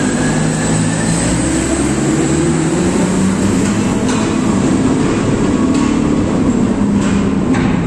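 Large 100-ton mining dump truck's diesel engine running with a loud, steady drone, with a few short clanks about four, six and seven seconds in.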